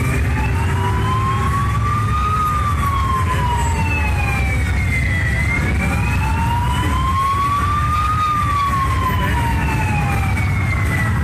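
Vehicle siren in a slow wail, its pitch gliding up for about three seconds and down for about three, twice through, over a steady low rumble.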